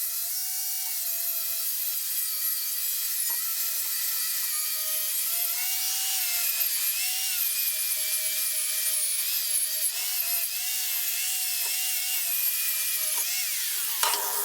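Handheld power tool running a wire wheel over steel welds: a steady high motor whine that dips and wavers under load over a hiss of wire bristles, then winds down and stops near the end.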